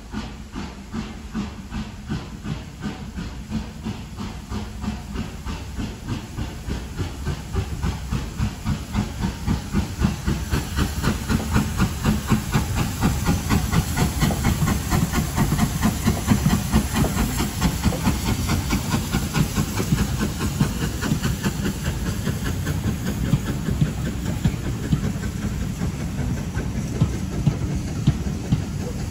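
Steam tank locomotive hauling a passenger train and working hard: a steady run of rhythmic exhaust chuffs over hissing steam, growing louder over the first ten seconds or so as it draws near and passes.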